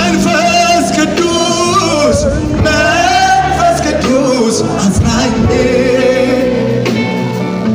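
Amharic gospel worship song performed live, a singer's voice with vibrato carried over the band.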